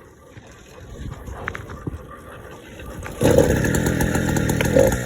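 A motorized bicycle's small two-stroke engine, ported and fitted with a high-compression head, cuts in suddenly about three seconds in. It then runs steadily with a rapid firing rattle.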